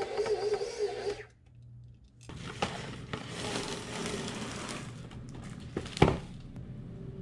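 Stand mixer motor running with a wobbling hum as the paddle works gingerbread cookie dough, stopping about a second in. After a moment of quiet, plastic cling wrap crackles as it is pulled off the roll and stretched out, with a sharp click about six seconds in.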